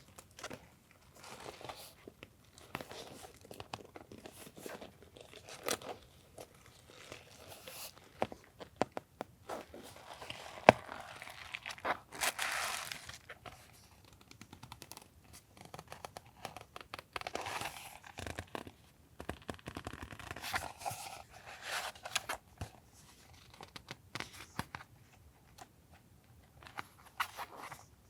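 Hands unwrapping and handling packaging: wrapping rustling, crinkling and tearing in short irregular bursts, with light taps and one sharp click about eleven seconds in.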